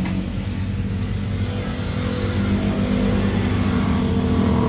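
Motor vehicle engine running, its low hum growing louder toward the end.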